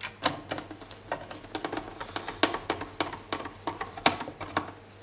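Screwdriver and small screws clicking and tapping against the dock's plastic as the amplifier screws are put back in: a quick, irregular run of light clicks, several a second.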